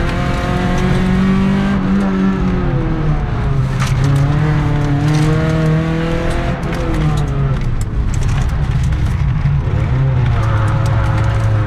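Toyota Celica 2.0 GTi's four-cylinder engine driven hard in a sprint slalom run. Its pitch climbs and drops several times as the driver accelerates, shifts and lifts between sections.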